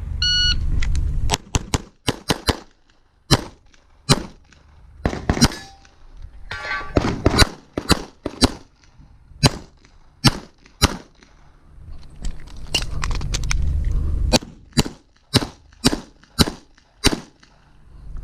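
A shot-timer beep, then a long string of pistol shots from a .40 S&W STI pistol, fired mostly in quick pairs with short pauses between groups as the shooter runs a stage.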